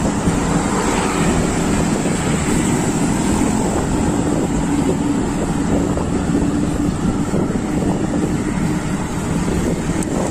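Wind buffeting the microphone of a camera riding along on a moving bicycle, a steady loud rush, with the hum of a passing motor vehicle beneath it.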